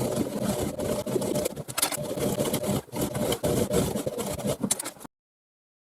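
Sewing machine running and stitching, with a couple of brief pauses, then stopping abruptly about five seconds in.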